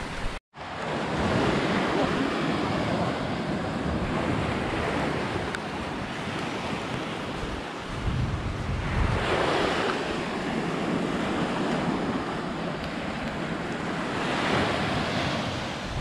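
Small sea waves breaking and washing up a sand-and-shell shore, with wind buffeting the microphone. The surf swells louder twice, around the middle and near the end, and the sound drops out briefly about half a second in.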